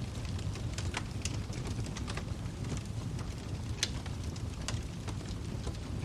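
Wood fire burning in a fireplace: a steady low rumble of the flames with irregular sharp crackles and pops from the burning logs, the loudest about a second in and near four seconds in.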